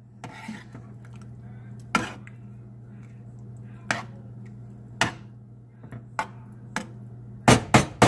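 Large metal spoon stirring thick meat sauce in a stainless steel pan, knocking against the pan now and then with sharp clicks, then several quick knocks in a row near the end.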